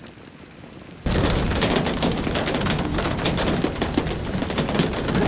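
Strong wind buffeting the microphone outdoors, cutting in suddenly about a second in after a faint hiss, with a dense rumble and many sharp crackling hits.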